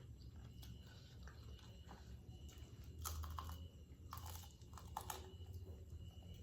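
Crunchy chewing and biting into crispy fried chicken, with a few crackly crunches, the loudest about three and five seconds in.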